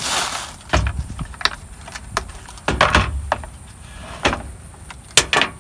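Plastic wrap crinkling, then a string of sharp clicks and knocks as a hard plastic tool case holding a punch set is handled and opened, the metal punches and hammer shifting inside.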